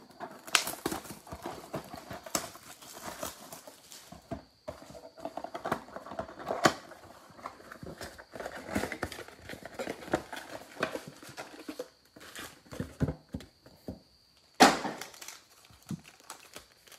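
A cardboard trading-card box being torn open by hand and its foil card packs pulled out: irregular tearing, rustling and crinkling, with one louder sharp stroke near the end.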